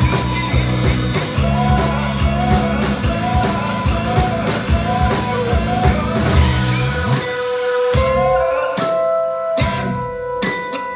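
Live rock band playing with drums and synthesizer keyboards. About seven seconds in, the dense full sound thins out to held keyboard notes over sparser sharp percussive hits.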